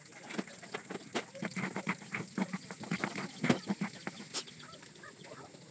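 A metal ladle clinks and scrapes against a metal pan as a foamy liquid is stirred, with a few sharp knocks, the loudest about three and a half seconds in. Chickens cluck in short bursts through the middle.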